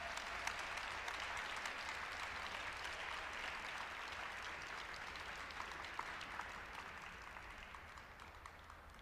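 Arena audience applauding a figure skater's finished program, with single claps standing out from the clapping; the applause dies away over the last few seconds.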